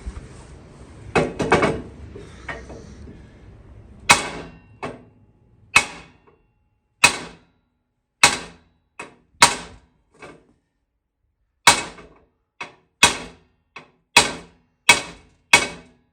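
Hammer blows on metal, driving seized wheel bolts out of a Ford 9N tractor hub. A few clanks come first, then about four seconds in a run of sharp ringing strikes starts, roughly one a second and quickening toward the end.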